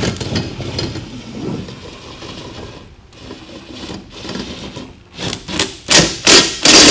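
Cordless impact driver running a nut down a greased threaded rod, drawing the wheel through the tire's foam run-flat insert. It runs in short bursts, with the loudest, quick bursts in the last two seconds.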